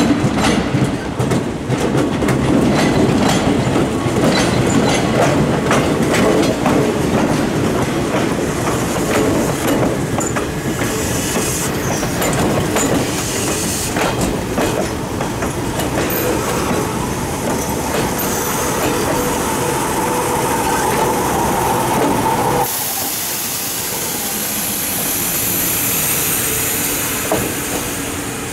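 Toyama Chiho Railway 10030 series electric train (ex-Keihan 3000 series) rolling slowly into the station platform, its wheels clicking over points and rail joints. As it slows, a steady squeal sets in. About three-quarters of the way through, the sound changes abruptly to a steady hiss and hum.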